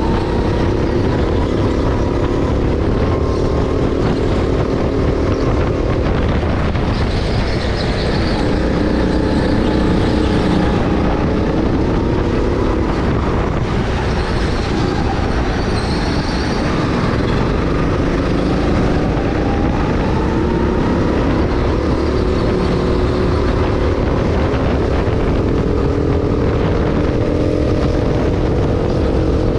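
Go-kart running hard around a track, heard from the driver's seat: a steady rumble with a motor note that rises and falls in pitch as the kart speeds up and slows for corners.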